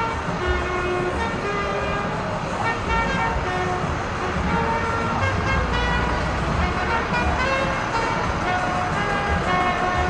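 Music from a bar carrying into the street: a melody of short held notes stepping up and down, over a steady low street rumble.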